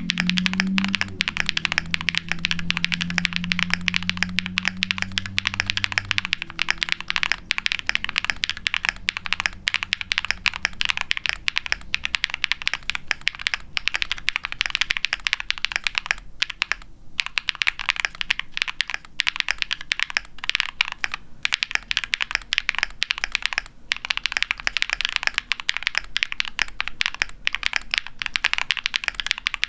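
Continuous fast typing on a Tofu60 mechanical keyboard with an aluminium case, POM plate, factory-lubed Huano Cherry Blossom linear switches and PBT keycaps: a dense stream of high-pitched keystroke clacks, with a brief pause a little past halfway.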